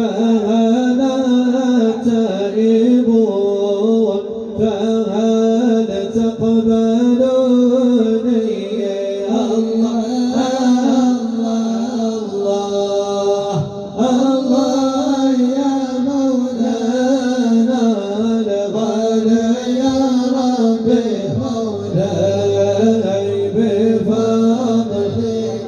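Islamic devotional chant in praise of the Prophet (madih nabawi): voices singing a slow, drawn-out melodic line over a steady held drone, with a short break between phrases about halfway through.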